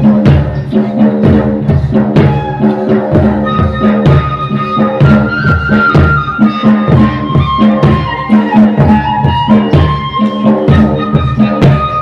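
Small flute played into a microphone, a held, wavering folk melody over drums beating a steady, regular rhythm. This is Rajasthani folk dance music.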